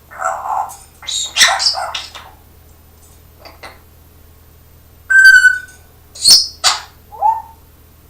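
Pet parrot vocalizing: a run of raspy, breathy sounds in the first two seconds, then a single clear whistled note about five seconds in, followed by two sharp short squawks and a brief chirp.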